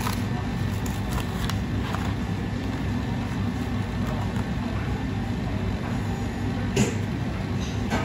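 Steady low mechanical hum of commercial kitchen machinery, with faint crinkles and taps as a plastic shimeji mushroom tray and its film are handled and opened, and one sharper click about seven seconds in.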